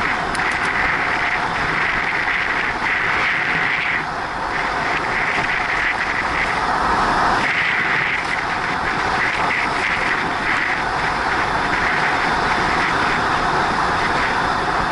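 Steady wind rushing over an action camera's microphone on a bicycle riding at about 40 to 50 km/h, with the tyres running on asphalt.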